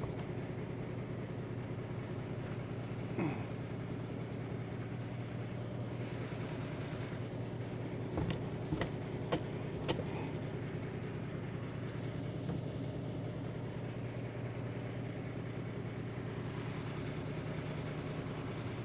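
An engine runs steadily at idle throughout. A short falling squeak comes about three seconds in, and a few sharp knocks or clanks come around eight to ten seconds in.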